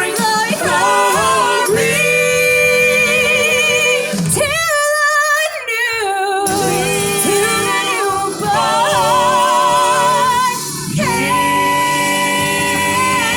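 Gospel-style Christmas singing with backing music: voices hold long notes with wide vibrato and slide through melismatic runs. Around the middle a single high voice soars above the others, and the rest join again for a final held note.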